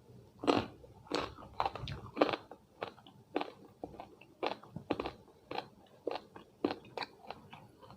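A person chewing crunchy food close to the microphone: a run of crisp crunches, roughly two a second.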